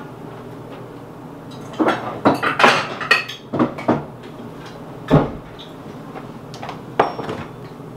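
Kitchen cabinet and dishes being handled: a run of clattering knocks, then a heavier knock about five seconds in and a sharp click near the end.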